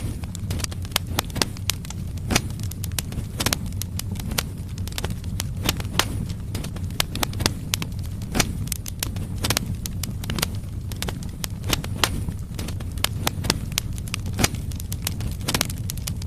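Firewood logs burning in a fireplace, crackling and popping at irregular moments over a steady low rumble of the flames.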